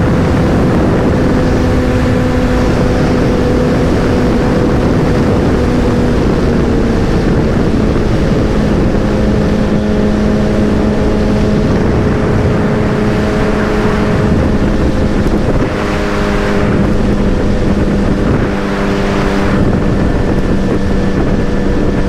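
Motorcycle engine running while riding, with wind rushing over the microphone. The engine note drops in pitch a few seconds in and then holds steady, with two brief dips in loudness later on.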